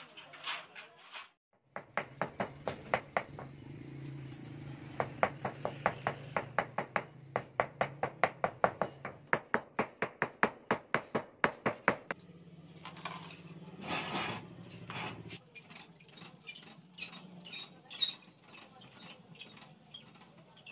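Hammer striking a thin curved metal band on a concrete floor, a steady run of sharp blows about three or four a second for about ten seconds, followed by lighter metal clicks and taps.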